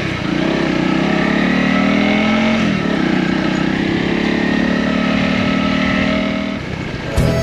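Honda CRF250 single-cylinder dual-sport motorcycle engine pulling away: revs rise, drop with an upshift about two and a half seconds in, then run steady before easing off near the end.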